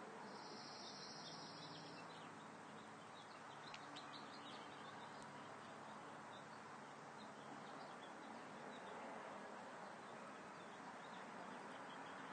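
Faint outdoor ambience: a steady low hiss with scattered, distant bird chirps, and a high, even trill lasting under two seconds near the start.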